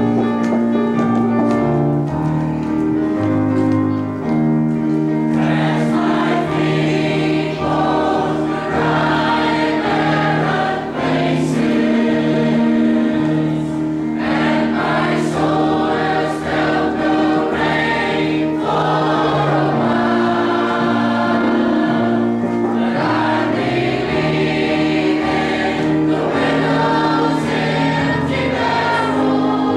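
Church choir of men and women singing a hymn together, over long held chords from the accompaniment.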